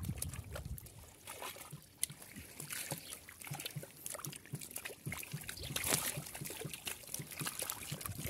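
Many small fish flapping and splashing in shallow muddy water inside a net: a continuous patter of small irregular splashes and trickling water, with a louder splash about six seconds in.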